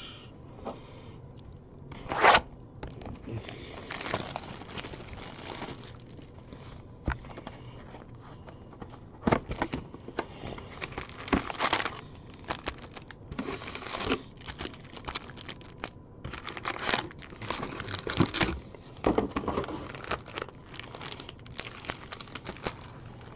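A jumbo box of trading-card packs being torn open and its wrapped packs handled: irregular bursts of tearing and crinkling wrapper, sharpest about two seconds in and busiest over the second half.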